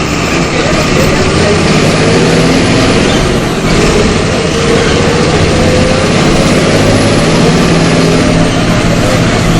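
Bus diesel engine, an MWM 6.12 TCAE six-cylinder, running under load as the bus drives, its pitch rising slowly, with a brief dip about three and a half seconds in.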